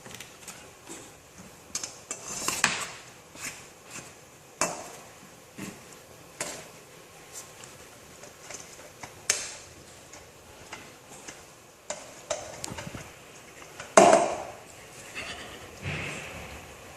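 Utensil knocking and scraping against a dish while cooked rice is mixed and mashed: irregular clicks and taps, with one louder knock late on.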